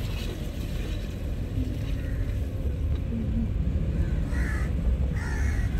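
Steady low road and engine rumble inside a moving car's cabin, with two short, harsh bird calls near the end.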